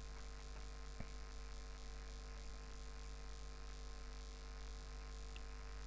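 Steady low electrical mains hum with a faint hiss, picked up by the microphone; one faint click about a second in.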